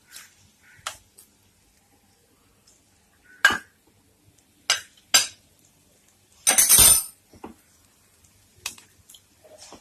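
Metal kitchen utensils and a bowl clinking and knocking together in a series of separate sharp clinks, with a longer, louder clatter about two-thirds of the way through.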